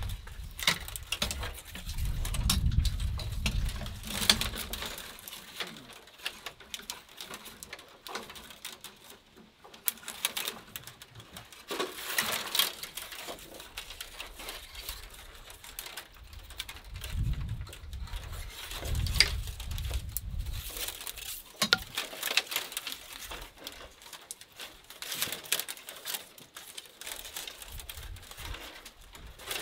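Thin split-bamboo strips rustling, clicking and scraping against each other as they are threaded through a basket frame by hand, in irregular bursts. A low rumble comes in near the start and again a little past the middle.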